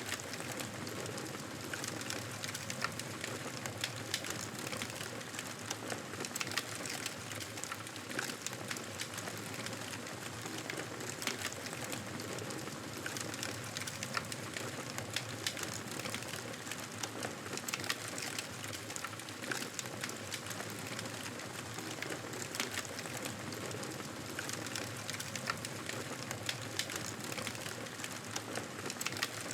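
Wood fire crackling in a fireplace: a steady hiss dotted with many small irregular pops and snaps.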